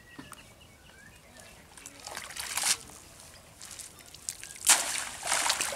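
Water trickling and dripping off a wet cast net as it is gathered and lifted, in two short bursts: one about two seconds in and a louder one near the end.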